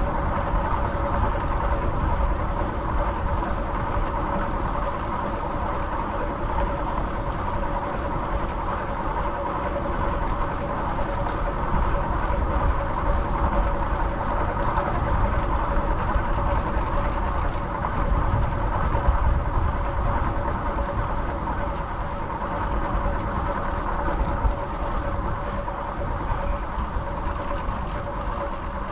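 Steady wind rush and rolling noise from riding a fixed-gear bicycle, with a faint steady hum.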